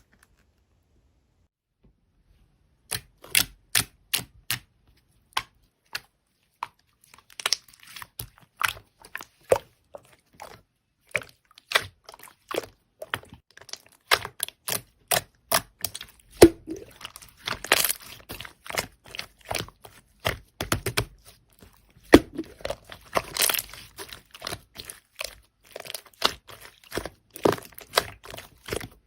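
Irregular sharp clicks and taps, a few a second and sometimes in quick runs, starting about three seconds in, with a couple of brief scraping, rustling stretches among them.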